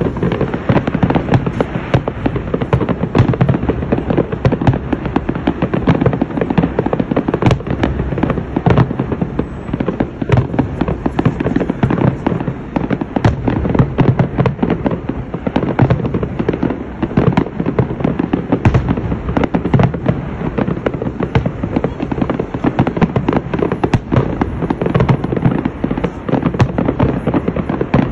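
Large aerial fireworks display: many shells bursting in quick succession, a dense barrage of bangs that goes on without a pause.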